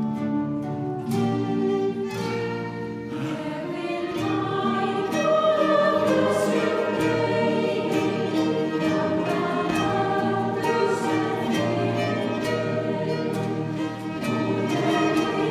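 Mixed choir singing an Irish folk melody in Icelandic, accompanied by fiddle and strummed acoustic guitar; the music swells about five seconds in.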